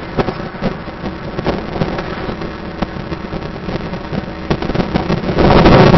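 Noise of a moving car, with wind buffeting the microphone and many short knocks and rattles. It swells louder about five seconds in.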